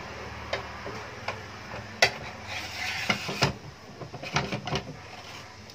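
Table saw motor humming with the blade spinning, under a series of knocks and clatters as a wooden crosscut sled is set down and shifted on the plywood saw table. The sharpest knock comes about two seconds in.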